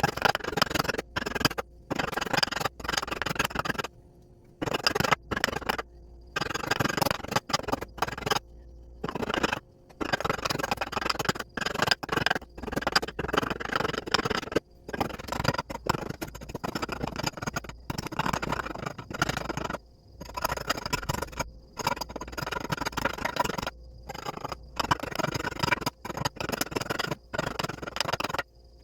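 Repeated rough scraping strokes of a hand tool working on a piece, in quick irregular runs broken by many short gaps.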